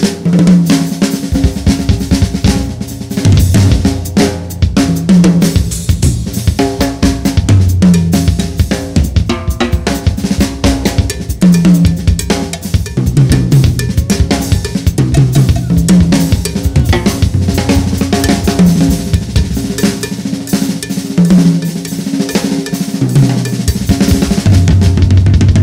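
Live jazz-fusion playing: a Yamaha drum kit played fast and busy over a repeating low bass figure.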